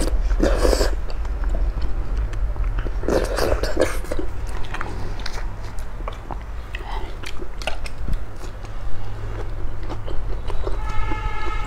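Close-miked eating sounds: spicy instant noodles slurped up in a noisy burst near the start, then wet chewing, smacking and small mouth clicks, with another loud stretch about three seconds in.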